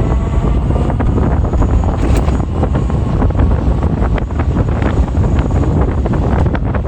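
Wind rumbling on the microphone of a moving electric bike, with scattered short rattles and knocks from the ride.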